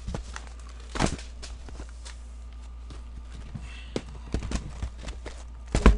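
Cardboard hobby boxes of hockey cards being handled and set down on a tabletop: a few scattered knocks, one about a second in and a cluster in the last two seconds, over a steady low electrical hum.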